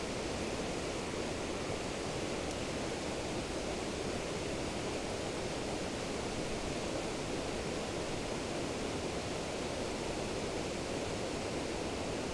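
Steady rush of a fast river current running over a shallow, rocky bed.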